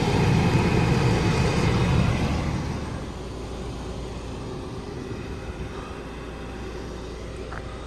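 A motor vehicle driving past on the road, its low rumble of tyres and engine loud at first and fading away about two and a half seconds in, then a steady quieter background noise.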